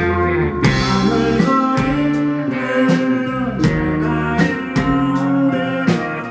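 Live rock band playing at full volume: guitars, bass and drums on a steady beat, with vocals.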